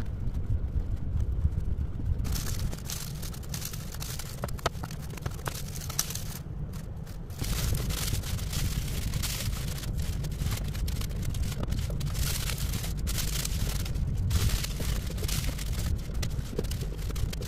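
Tissue paper crinkling and rustling as pieces are scrunched and pressed onto a foam board, over a steady low rumble. The rustling grows denser and louder about halfway through.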